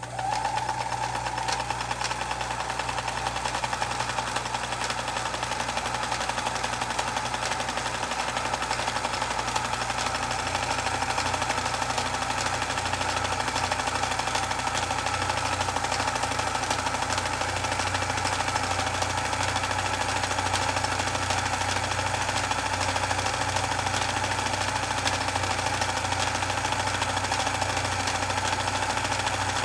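Vintage Brother Pacesetter XL703 electric sewing machine running steadily while sewing a satin stitch: a motor whine over a rapid needle chatter.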